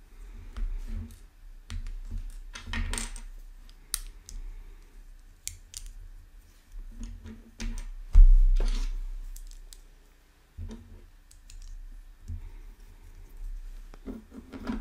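Plastic Lego pieces clicking and clattering as they are handled and pressed together, in irregular small clicks. A heavy low thump about eight seconds in is the loudest sound.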